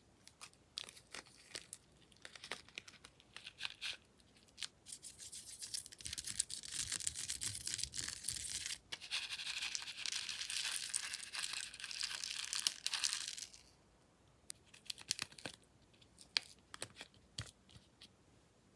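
Slime being handled up close: scattered sharp clicks and pops, with a dense stretch of crackling from about five seconds in that stops suddenly near the end, falling back to a few clicks.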